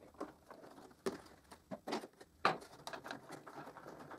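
Handling noise as a wooden batten is set into a plywood routing jig and a bar clamp is slid and tightened on it: a handful of scattered light knocks and clicks of wood and metal, the loudest about two and a half seconds in.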